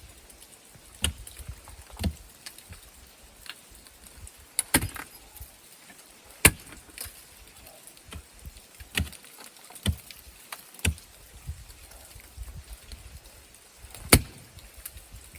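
Irregular sharp clicks and knocks, roughly one every second or two, over a faint low rumble; the loudest come about six and about fourteen seconds in.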